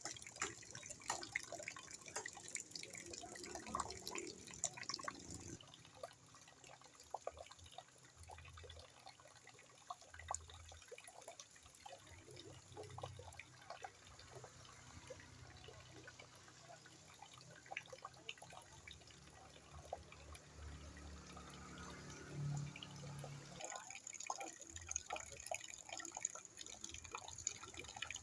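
Rainwater dripping into a bucket: many irregular drips and small splashes over a low hiss, the background changing twice.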